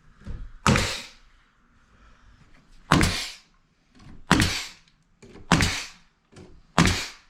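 Five sharp knocks at uneven intervals of about one to two seconds, each with a short ring after it.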